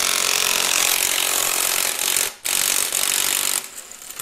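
Impact wrench hammering on the crankshaft pulley bolt in two long bursts with a short pause between, stopping near the end as the bolt breaks loose.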